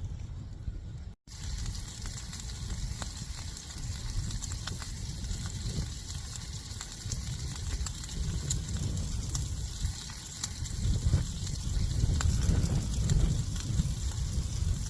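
Food sizzling and crackling in a frying pan, over the low rumble of strong wind gusting against the tent and the microphone, which grows stronger near the end. A brief dropout about a second in.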